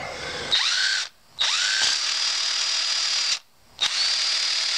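Chicago Electric 18-volt cordless 1/4 in. hex impact driver spinning freely with no load, triggered three times. Each time the motor whine rises quickly and then holds steady, first in a short burst and then in two longer runs, with no hammering from the impact mechanism.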